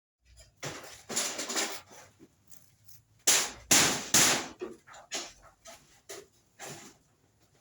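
A person coughing: a rough burst about a second in, then three hard coughs in quick succession near the middle, trailing off into weaker ones.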